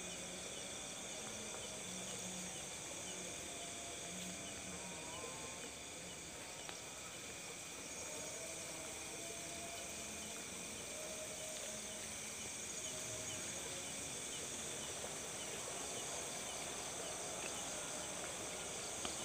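A steady chorus of crickets and other insects trilling, with faint brief calls underneath now and then.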